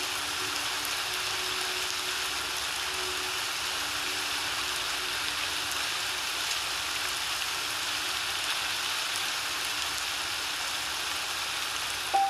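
Recorded rain from a rain-and-piano background track: an even hiss of falling rain, with faint held piano tones fading away in the first half and a piano note struck right at the end.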